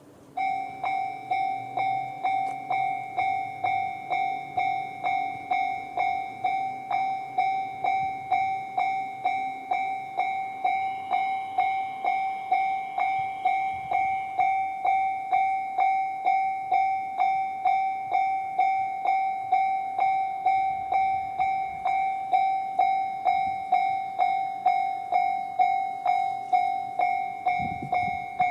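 Japanese level-crossing electronic warning bell in the JR standard tone, switching on about half a second in and ringing a steady, even ding, a little over two strikes a second.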